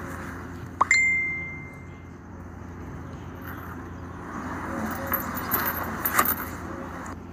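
A single bright bell-like ding about a second in, led by a quick rising sweep and ringing out for about a second. Faint background noise with a few light clicks follows.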